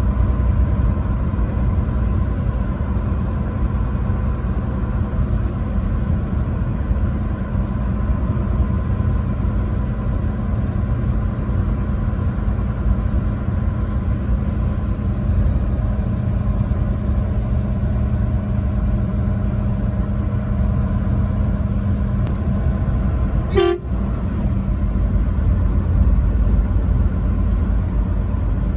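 Truck driving along: steady engine and road drone. A single short, sharp blip sounds about 24 seconds in.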